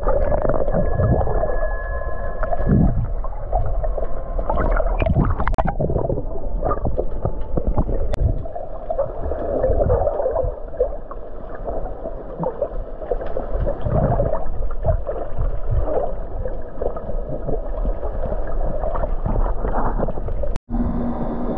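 Muffled water noise picked up by a camera filming underwater: a steady dull rush with irregular low knocks and nothing bright above it. It cuts out briefly near the end.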